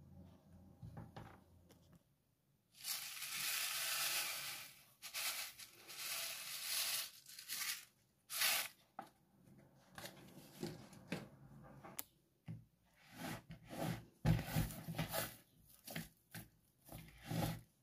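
Crumbly cheese-and-flour dough being worked in a plastic bowl. First come several seconds of steady scraping and rustling as a hand mixer churns the dry mixture, then shorter bursts. Near the end there is a run of short, uneven squishing and slapping sounds as the dough is kneaded by hand.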